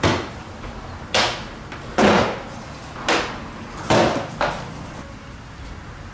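Plastic retaining clips snapping loose one after another as the stock resin side step panel of a Toyota Harrier is pried off the body: about six sharp cracks, roughly one a second, then they stop.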